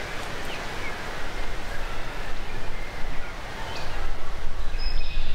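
Outdoor wind noise rushing on the microphone and through the trees, getting louder in the second half, with a few short bird chirps over it.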